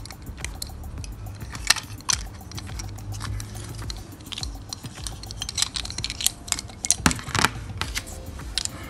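Parts of a die-cast toy car clicking and rattling together as they are handled and pulled apart: the metal body, a tinted plastic window insert and a plastic base. Scattered small clicks, with a sharper one about two seconds in and a cluster of clicks near the end.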